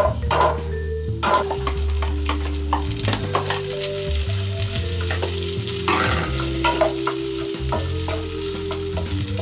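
Pasta and sausage frying in a nonstick pan while being stirred with a wooden spatula: steady sizzling with frequent short scrapes and taps of the spatula against the pan.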